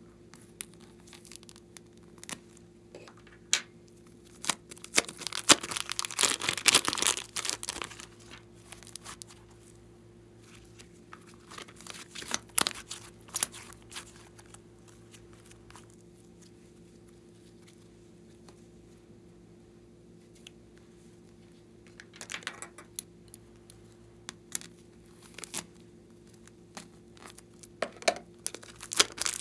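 Slime being squeezed out of plastic piping bags and worked in the hands, giving crinkling and crackly, tearing-like sounds. The sounds come in several bursts with quiet gaps between them. The longest and loudest burst is a few seconds in, and all of it sits over a faint steady hum.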